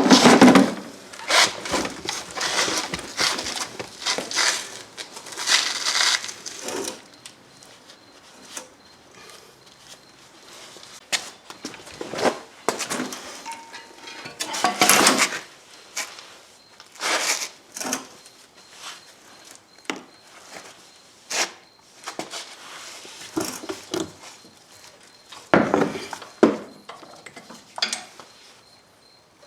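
Metal hand tools and parts being handled, with irregular clinks, knocks and clatter; the noise is busiest over the first several seconds, then comes in scattered single knocks.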